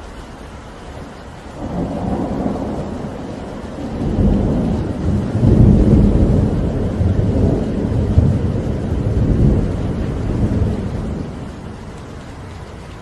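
A long roll of thunder over steady rain. The rumble builds about a second and a half in, is loudest through the middle, and fades away near the end.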